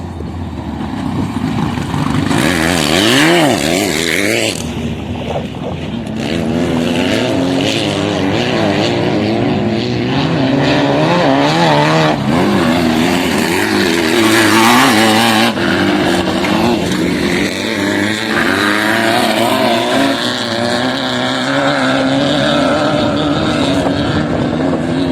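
Off-road motorcycle engine running under way, its pitch rising and falling with the throttle, with two stretches of rushing noise, about two seconds in and again halfway through.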